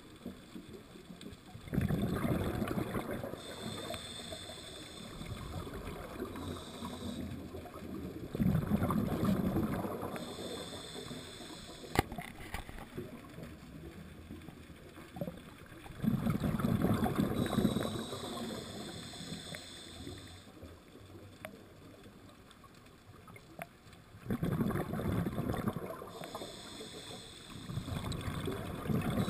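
Scuba diver breathing through a regulator underwater: a rush of exhaled bubbles about every seven to eight seconds, alternating with the hiss of the regulator on each inhale. One sharp click about twelve seconds in.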